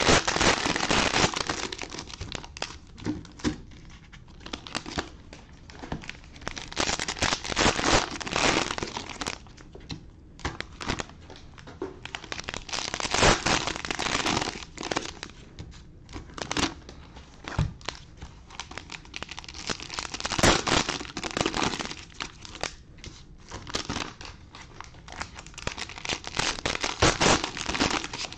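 Cellophane wrappers of trading-card cello packs crinkling as they are torn open and handled, in repeated bursts every few seconds.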